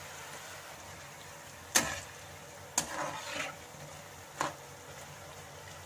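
Potato snacks deep-frying in oil in a kadai, a steady sizzle. A slotted metal spatula knocks against the pan three times, with a short scrape after the second knock.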